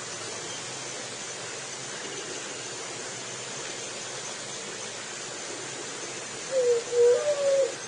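Steady hiss. About six and a half seconds in, a juriti, a Leptotila dove, starts its low cooing song: a short run of linked notes that wavers up and down.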